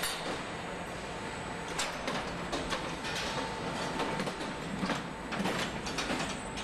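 Car assembly-line machinery running: a steady factory hum with a faint high whine, and a string of sharp metallic clanks and clicks through the middle as the overhead carrier and the automated station handle the car body over its engine and running gear.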